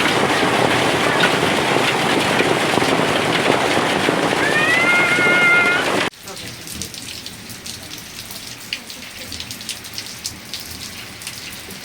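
Heavy rain with wind, a loud dense hiss, with a brief pitched tone about four and a half seconds in. About six seconds in it cuts abruptly to quieter rain, with many sharp separate drop impacts.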